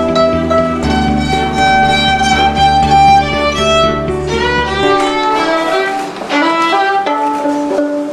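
Violin bowed live, playing a melody of held and moving notes. A low sustained drone sounds beneath it for the first five seconds or so, then drops away, leaving the violin's higher notes on their own.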